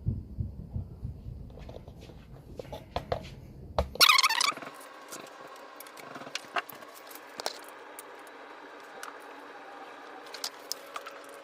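Metal tools and bike parts being handled: scattered clicks and light knocks, with a short, loud, high-pitched scrape about four seconds in.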